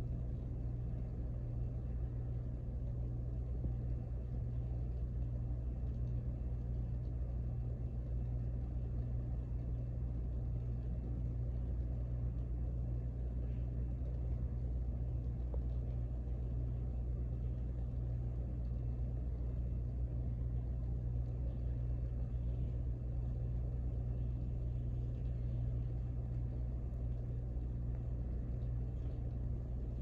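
Three-blade ceiling fan running steadily: a constant low motor hum under the even rush of its spinning blades.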